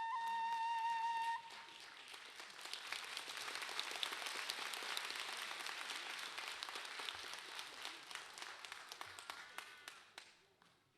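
A kagura flute holds a high final note that stops about a second and a half in; then the audience applauds, growing for a few seconds and dying away near the end.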